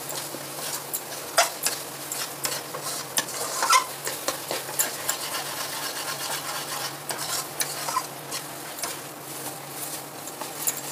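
Steel spatula stirring and scraping thick masala paste around a stainless steel kadhai, in irregular strokes over a light sizzle: the ground onion-tomato-cashew masala being fried (bhuna) with constant stirring so it does not burn.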